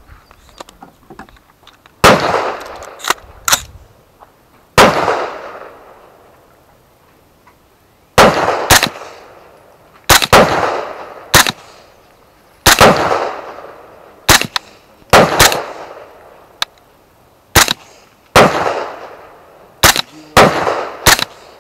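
Single gunshots from an AR-style rifle, fired one at a time every two to three seconds, each followed by a long rolling echo. Sharper, shorter shots come in between them.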